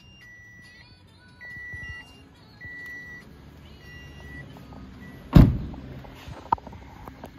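Toyota Noah hybrid's electronic warning chime beeping about once a second, each beep a steady half-second tone. About five seconds in the front door slams shut, the loudest sound, with a short boom.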